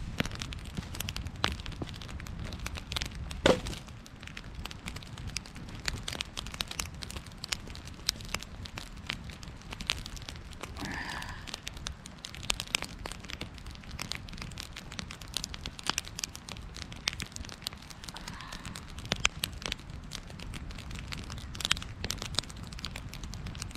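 Wood campfire crackling, with irregular sharp snaps and pops throughout and one loud pop about three and a half seconds in.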